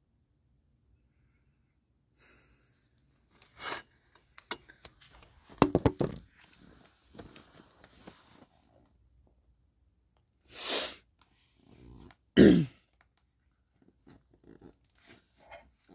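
Loud breath sounds close to the microphone, three strong bursts, with clicks and rustles of handling in between and a quick cluster of sharp clicks about six seconds in.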